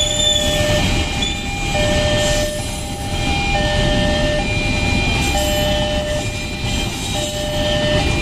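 Freight train wagons rolling through a level crossing with a continuous low rumble. Over it the crossing's electronic warning alarm sounds two tones in turn, each held a little under a second, over and over.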